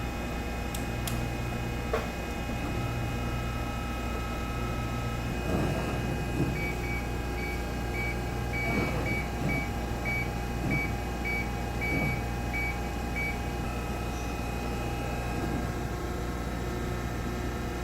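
Amada RG-80 CNC hydraulic press brake running, its hydraulic pump motor giving a steady hum. Midway there is a run of about a dozen short, high beeps, along with a few dull knocks.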